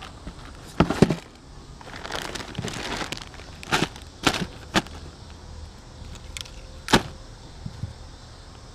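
Fishing gear being handled: a plastic tackle box and gear bags knocked and shifted about, giving several sharp knocks and clicks, the loudest about a second in and about seven seconds in, with rustling between.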